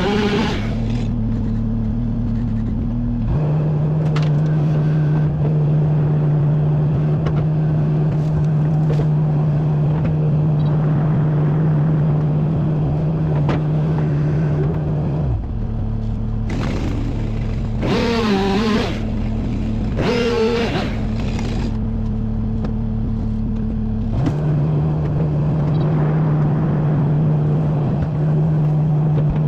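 Wood chipper's engine running steadily. Twice, about two-thirds of the way in, a wavering tone dips in pitch and climbs back, as when the machine takes a load of wood.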